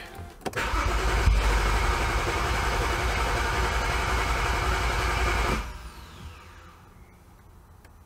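BMW N55 turbocharged inline-six engine cranking on its starter for about five seconds, trying to fire but not catching, then cutting off: a crank-no-start, with no fuel pump heard beforehand.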